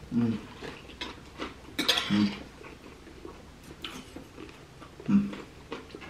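A knife and fork clicking and scraping against a plate of salad while a man eats, with three short 'mm' hums between bites.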